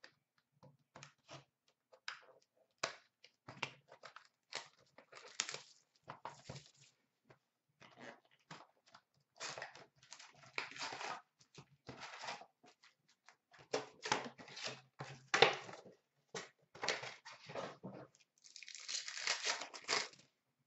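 Trading card packs being torn open by hand: irregular ripping and crinkling of the pack wrappers and the box's cardboard, in quick bursts with short gaps between them.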